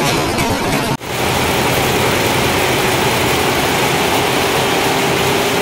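A multi-head computerized embroidery machine running steadily, a dense mechanical whir with a steady hum. About a second in, a sudden cut ends the music that comes before it.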